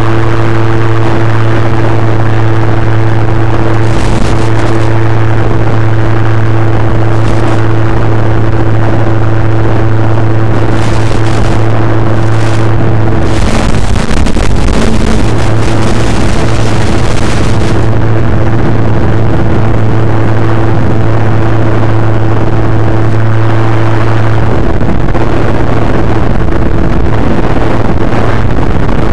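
Electric RC plane motor and propeller running at steady cruise throttle, a loud constant drone heard through the onboard FPV camera's audio. About halfway through, the drone breaks up into a couple of seconds of loud radio static as the analog video link drops out, then returns.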